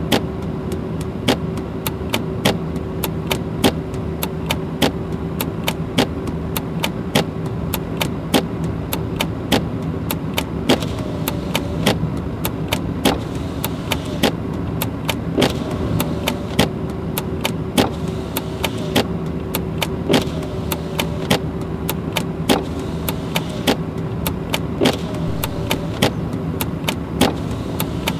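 Car driving, heard from inside the cabin: a steady engine and road hum, with sharp ticks repeating two or three times a second throughout.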